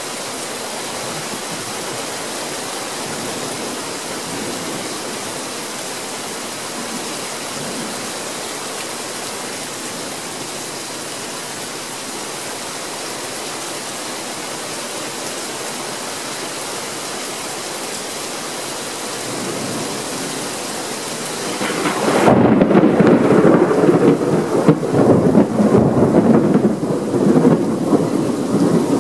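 Steady rain falling in a thunder shower. About three-quarters of the way through, a loud rolling rumble of thunder sets in and keeps rising and falling.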